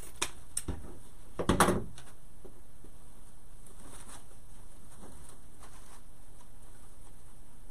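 Ribbon bows and grapevine wreath being handled, giving a few light clicks and one louder, brief crinkling rustle about a second and a half in, then only faint rustles over a steady hiss.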